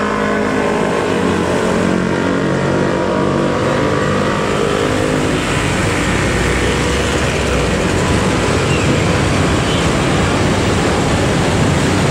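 Street traffic of motorcycles and cars passing beside a freight train of hopper wagons rolling along a street-running track, making a dense, steady noise. Held pitched tones sound over it for the first few seconds and then fade out.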